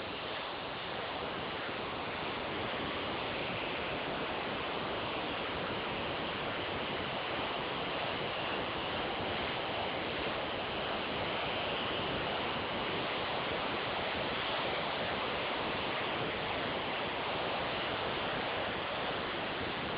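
Small model steam traction engine running on compressed air, giving a steady hiss with no separate exhaust beats.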